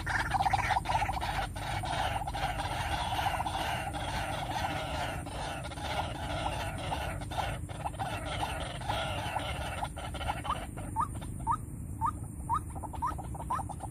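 White-breasted waterhen (ruak-ruak) calling: a dense, harsh chattering chorus, which about ten seconds in gives way to short rising 'kwak' notes repeated about twice a second.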